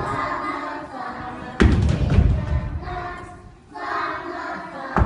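A group of young children singing a song together, breaking briefly for a breath about three and a half seconds in. A heavy low thump cuts in about one and a half seconds in.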